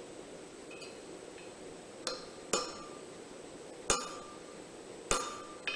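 A hammer strikes a flat-ended punch on red-hot steel over an anvil, driving the punch about halfway through the bar from one side. There are a couple of faint taps, then five ringing metallic blows at uneven intervals.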